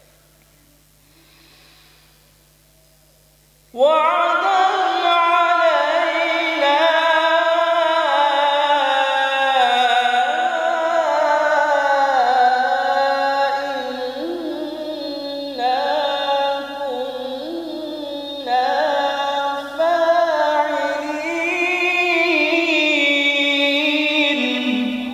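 Solo male Quran recitation (tilawat) in the melodic, sung style: after a quiet pause, a long ornamented phrase begins suddenly about four seconds in, with held notes that slide up and down and a few short breaks.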